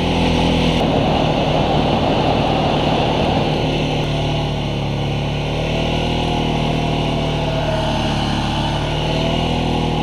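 ATV engine running while the quad rides along, a steady drone whose pitch rises and falls slightly with the throttle.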